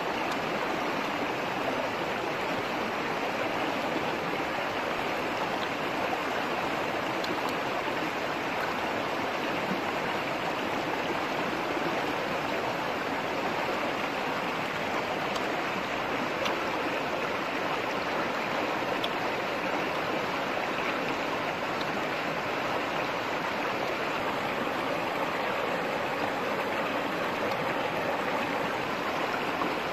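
A shallow, rocky stream rushing over stones, a steady, unbroken flow of water.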